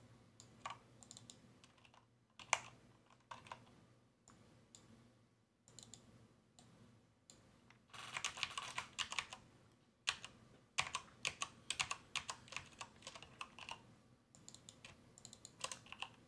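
Computer keyboard clicking in irregular taps, with two dense runs of keystrokes, about eight seconds in and again from about eleven to thirteen seconds. A faint low hum lies underneath.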